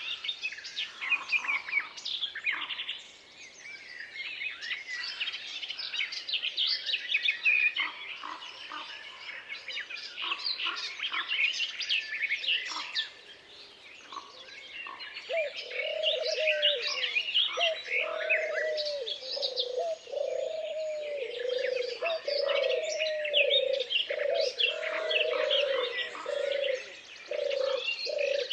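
Forest songbirds chirping and singing in a busy chorus of short high calls. From about halfway through, a lower bird call joins in, repeated over and over in a steady series.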